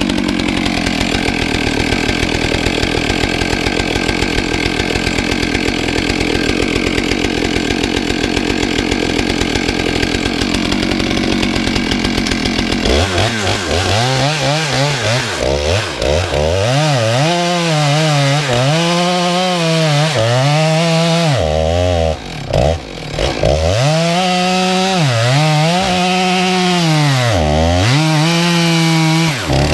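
Gasoline chainsaw with a long bar cutting into log rounds. For roughly the first half it runs steadily at full throttle under load in the wood. Then the engine pitch swings up and down again and again as the load changes, with a brief drop about two-thirds of the way through.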